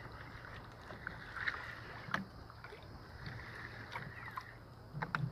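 Spinning reel being cranked to wind in a hooked fish, with scattered light clicks and knocks over a steady wash of wind and sea on an open boat.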